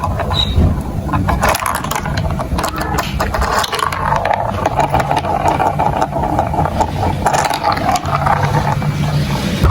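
Marbles rolling and clattering through a plastic building-block marble run: a continuous rolling rumble with many small clicks of marbles knocking against the track.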